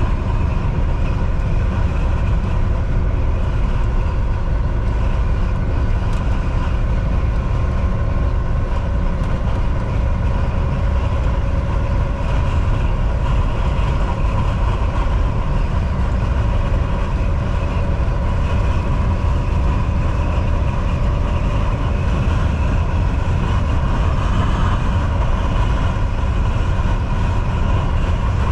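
Volvo VNL 760 semi-truck cruising on the highway: a steady, heavy low rumble of engine and road noise, with a faint steady whine above it.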